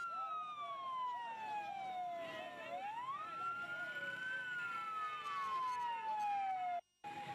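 Emergency-vehicle siren wailing in a slow cycle: the tone sweeps up quickly, then falls slowly over about three seconds, twice over. The sound cuts out for a moment near the end.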